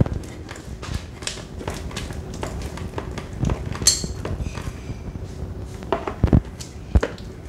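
Homemade slime being mixed and kneaded with activator: a run of small sticky clicks and soft handling noises, with a brief high squeak about four seconds in.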